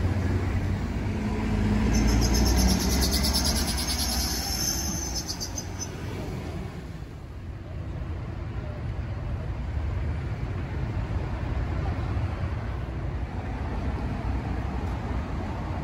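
City street traffic: a steady low rumble of buses and cars passing close by, loudest a couple of seconds in. Over it, a high, fast-pulsing buzz lasts about three seconds and then fades, leaving an even traffic hum.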